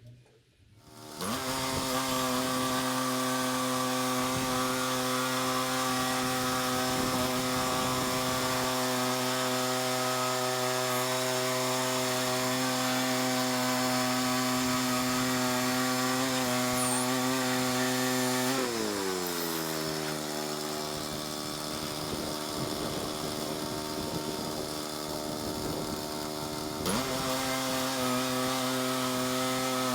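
Woodland Mills 122 bandsaw mill's gas engine running steadily at high speed while sawing an ash log. About two-thirds of the way through it winds down to a lower speed and holds there, then speeds back up near the end.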